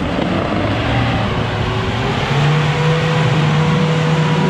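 Off-road vehicle engine revving up in two steps, then held steadily at higher revs.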